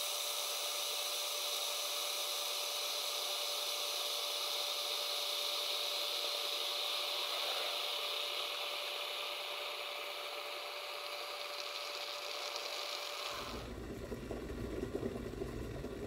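Glass electric kettle heating water, sped up: a steady hiss with a faint steady tone, turning about 13 seconds in into the rougher, rumbling sound of water coming to a rolling boil.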